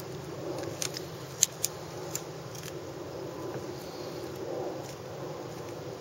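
Several sharp metallic clicks of fishing pliers working on a swallowed 1/0 hook, trying to break its barb off, all within about a second and a half starting near one second in. Steady low background noise runs underneath.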